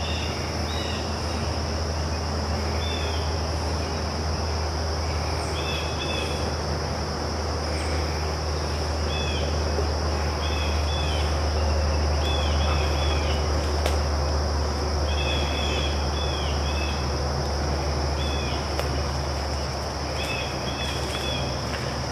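Steady high-pitched drone of a late-summer woodland insect chorus of crickets, with short chirping calls in groups of two to four every few seconds, over a low steady rumble.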